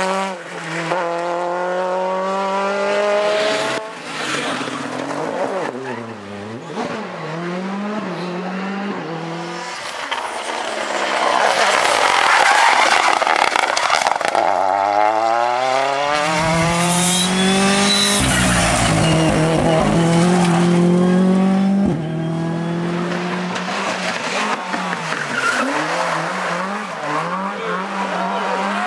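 Rally car engines revving hard, the pitch climbing again and again as the cars accelerate and shift up through the gears. Several short passes are cut one after another, with a held, loud engine note and a deep rumble in the middle.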